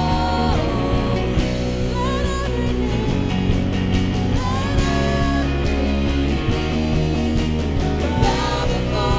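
Live worship band music with a steady beat, held bass notes and guitar, and a singer's voice carrying short held phrases.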